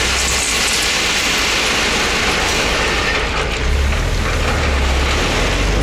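A DAF truck's diesel engine running, heard from inside the cab as the truck manoeuvres slowly, a low drone under a steady hiss. The drone grows louder about two-thirds of the way through.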